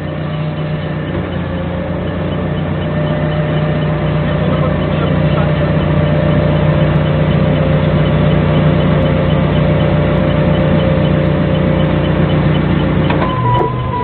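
A Doosan 4.5-ton forklift's engine running steadily under load, growing gradually louder as the forklift turns with a heavy load raised on its forks. Near the end, the rear proximity sensor starts sounding electronic beeps that step in pitch.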